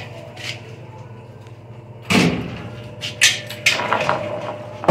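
A door being opened: a scraping slide about two seconds in, followed by a couple of sharp knocks.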